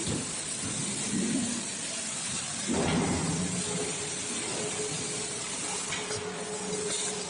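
Orbital tube welding machine at work: a steady hiss, with a low steady hum joining about three seconds in.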